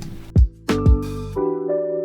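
Background music: electric piano chords over deep bass-drum hits, the drums dropping out about halfway through and leaving the chords ringing.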